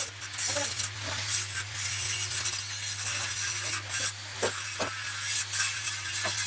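Metalworking noise: continuous scraping and rasping with scattered clinks and knocks over a steady low electric hum.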